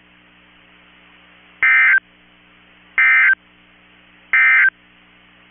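Three short bursts of buzzy warbling data tones, each about a third of a second long and about a second and a half apart: the EAS SAME End-of-Message code sent three times by NOAA Weather Radio to close the test alert. A faint steady hum sits underneath.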